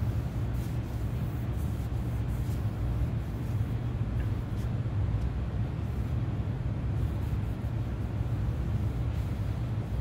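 A steady low hum with a faint hiss above it, broken only by a few faint soft scuffs.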